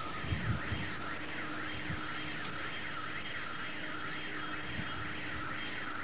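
Electronic siren finishing a slow falling wail, then switching to a fast yelp that sweeps up and down about twice a second, and cutting off suddenly at the end. A few dull thumps sound about half a second in.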